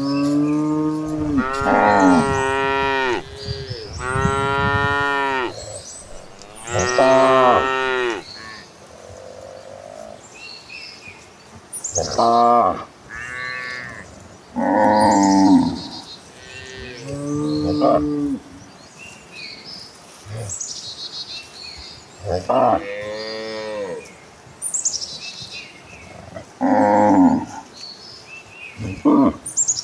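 Cattle mooing: about nine long calls one after another, at different pitches, some bending up and down within the call.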